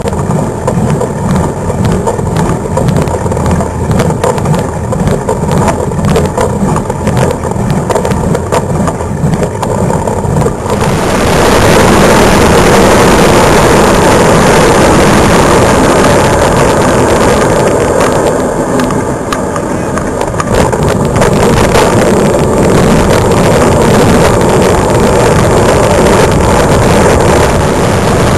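Wind and road noise on a camera moving along a country road, a steady buffeting rumble. About eleven seconds in it jumps louder and brighter.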